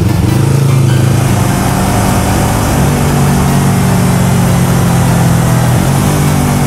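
Yamaha MT-03 motorcycle's parallel-twin engine running under way at fairly steady revs, heard with wind rush; the engine note dips briefly near the end and climbs again.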